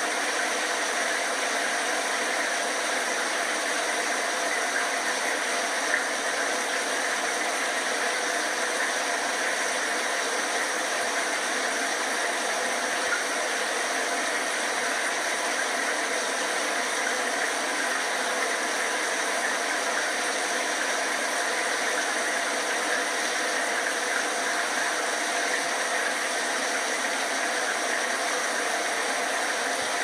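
Shower running: an even, unbroken hiss of falling water spray.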